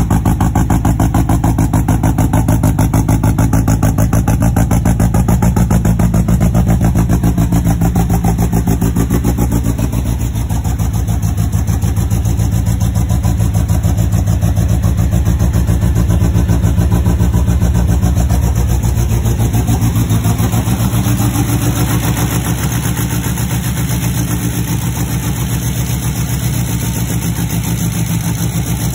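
1974 MGB vintage race car's B-series four-cylinder engine running steadily just after a cold start, a loud, even pulsing exhaust note. It gets a little quieter about two-thirds of the way through.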